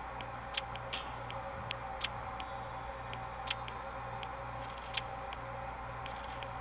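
Music played at maximum volume through Earfun Free 2 true wireless earbuds held up to a microphone, heard faintly: a low bass line pulsing about twice a second, with light ticks on top.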